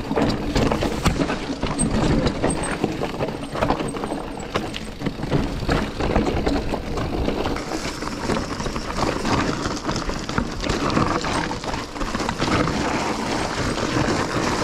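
Mountain bike descending a rough, rocky trail: dense rattling and clattering as the tyres hit rocks and the bike shakes, over a constant rush of air noise.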